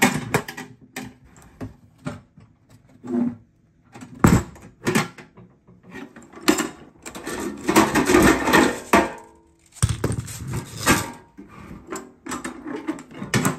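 Steel ammo can and its hinged lid being handled, closed and opened: a string of metal knocks and clanks, one sharp knock a few seconds in, and a longer stretch of rattling and clattering in the middle.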